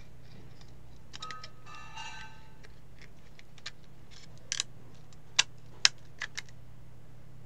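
Sharp clicks and taps of the hard plastic adapter casing being handled and fitted, about half a dozen, the two loudest a little past five seconds and near six. Early on there is a brief squeaky pitched sound, all over a steady low hum.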